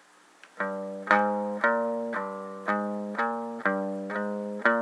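Guitar playing single picked notes on the low E string in a 3rd-4th-6th fret finger pattern, one note at a time at about two notes a second, starting about half a second in. Each note rings and fades before the next is picked.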